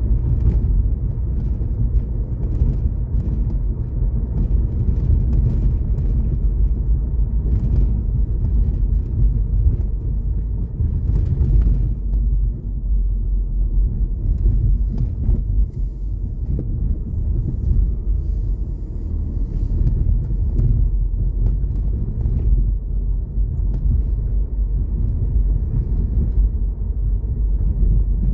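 Steady low rumble of a car on the move, heard from inside the cabin: engine and tyre noise on the road.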